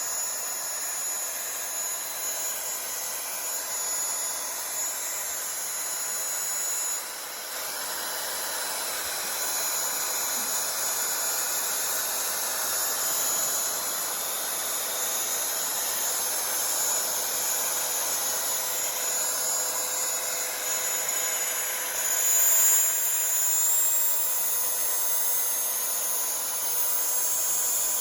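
X-Carve desktop CNC router's spindle running steadily with a high whine while a 1/8-inch up-cut bit mills 2 mm aluminium sheet, with a hissing cutting noise.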